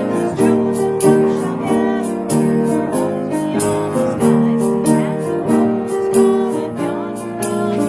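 Instrumental hymn music: held chords that change every half second or so, with a melody line over a steady light beat.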